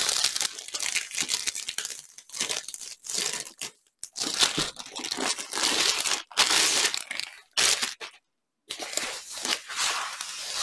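Clear plastic sleeve crinkling and rustling in bursts as it is pulled off a rolled diamond painting canvas, then the canvas and its white wrapping rustling as they are unrolled. The rustling stops dead for a moment about eight seconds in.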